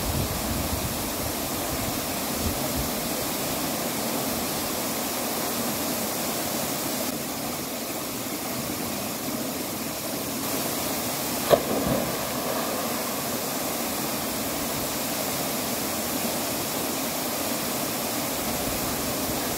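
Steady rush of a waterfall pouring into its plunge pool. About halfway through comes one sharp splash, as a person drops into the pool.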